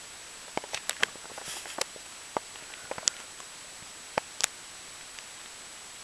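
Faint, scattered clicks and soft taps at irregular intervals: handling noise as the plush horse puppet is shifted about on the bedcovers.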